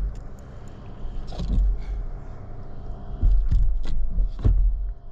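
Wind buffeting the microphone in gusts, with a few sharp knocks and clicks of gear being handled, the loudest near the end.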